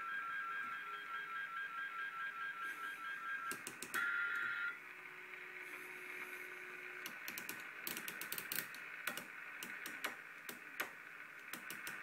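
Receiver hiss from a Lafayette AFS-640 CB radio's speaker on a band with no stations, with a few brief steady whistle tones in the first half. The channel selector is clicked through the channels, giving runs of sharp detent clicks, most of them in the second half.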